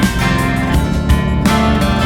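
Background music with guitar, with notes struck at a regular beat.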